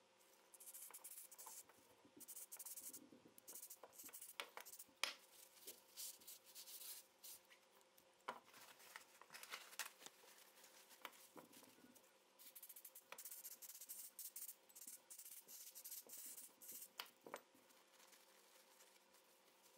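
Faint aerosol gun-cleaner spray hissing in short bursts and one longer stretch, with small metal gun parts clicking now and then.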